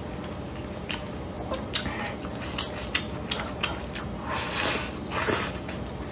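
Close-miked chewing of stir-fried dried tofu and rice: scattered wet mouth clicks and smacks. There is a longer, breathy stretch of sound around four to five seconds in as another mouthful goes in.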